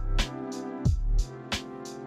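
Background music with a steady beat: low thuds and sharp hits over held chords.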